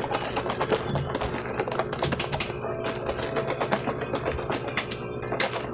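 Rapid, irregular clicking and rattling of a container of calamansi and Kojie San mixture being shaken, over faint background music with steady held tones.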